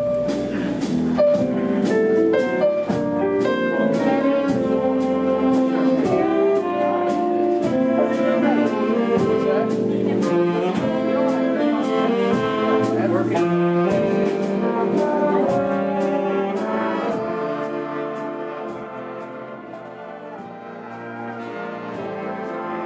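Live big band playing a swing dance number: saxophones, trumpets and trombones over a steady beat of about two strokes a second. The band drops to a softer passage late on and then builds again.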